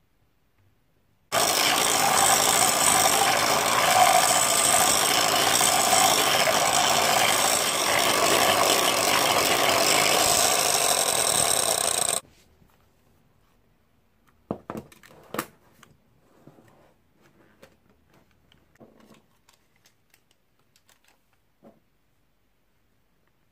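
Electric hand mixer running steadily, its beaters whipping cream and mascarpone in a stainless steel bowl for a cake topping. It starts about a second in and stops suddenly after about eleven seconds. A few sharp knocks follow a couple of seconds later.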